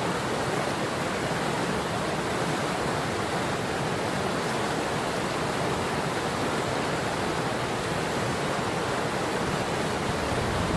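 Patapsco River water rushing steadily, a constant even hiss with no breaks.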